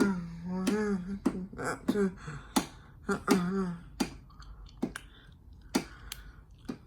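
A person's voice making short hummed sounds, with sharp clicks in between, about one every half-second to second; the hummed sounds stop about halfway through and only the clicks go on.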